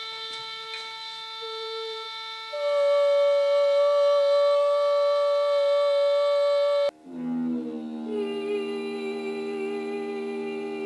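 A whistling kettle's steady tone, joined about two and a half seconds in by a woman singing a louder sustained note in harmony with it; both cut off sharply just before seven seconds. Then a new set of lower sustained tones begins, with a woman humming a steady note above them.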